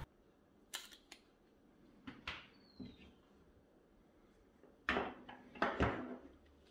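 Faint handling sounds of unboxed accessories and packaging: scattered light clicks and knocks, a short falling squeak about two and a half seconds in, and a cluster of louder knocks about five to six seconds in.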